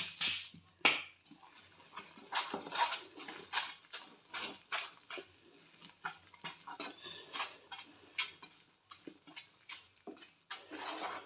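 A spoon stirring and scraping in a pan of hot ginger candy syrup just after baking soda has gone in, in quick, uneven strokes, two or three a second.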